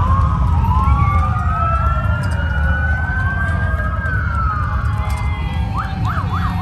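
Several emergency-vehicle sirens wailing at once, their pitches slowly rising and falling and overlapping, with a few quick yelping sweeps near the end, over a steady low rumble.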